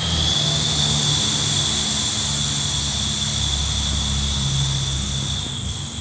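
A low, steady engine drone with insects trilling on one high, steady note.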